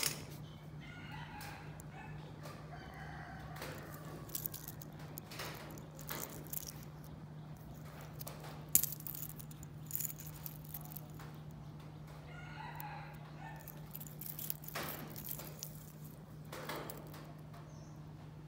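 A rooster crowing faintly in the background twice, once about a second in and again past the middle, over a steady low hum. Scattered sharp clicks and light knocks, the loudest about halfway through.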